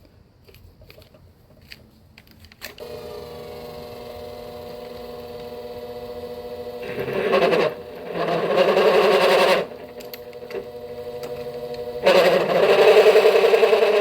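A small lathe's motor starts about three seconds in and runs with a steady hum. Over it come three louder bouts of rough cutting noise as a drill is fed into the spinning workpiece.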